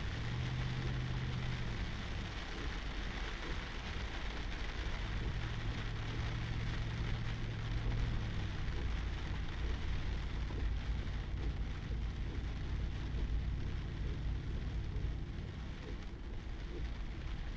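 Pickup truck driving a wet dirt road, heard from inside the cab: a steady rush of tyres and rain with a low engine hum that swells and fades.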